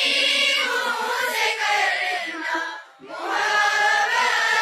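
Assembly of schoolchildren singing an Urdu prayer (dua) in unison as a chorus, in two phrases with a short breath about three seconds in.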